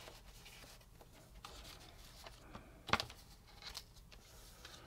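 Faint handling noises of a paper instruction sheet and card kit package rustling, with one sharp tap about three seconds in.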